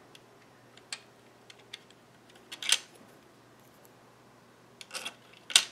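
A few short, sharp clicks and clacks from handling a latch tool against the 3D-printed plastic parts and needles of a circular sock knitting machine. The loudest cluster comes about two and a half seconds in, and a double clack comes near the end.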